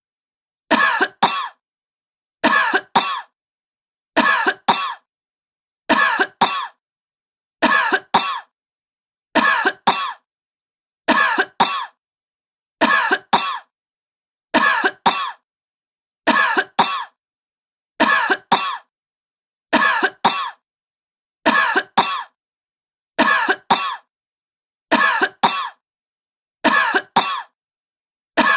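A sick woman coughing in pairs of short, harsh coughs. A pair comes about every second and three-quarters with exact, unvarying spacing and silence between, about sixteen pairs in all.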